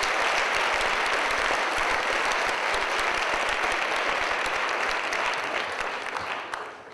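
Audience applauding at the end of a musical number, a dense steady clapping that dies away near the end.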